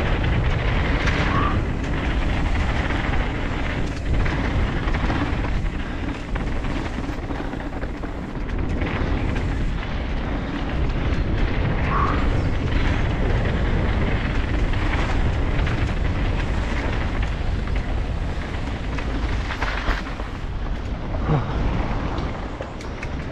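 Mountain bike descending dirt singletrack, heard from a helmet-mounted camera: a steady rush of tyre noise on dirt and gravel under heavy wind rumble on the microphone, with a few sharp knocks and rattles as the bike hits bumps.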